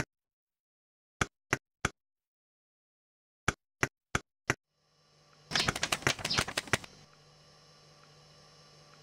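Short, dry clicking sound effects in small even groups: three clicks, then four. About halfway through, a dense run of rapid clicks lasts over a second, over a faint steady hum that sets in just before it.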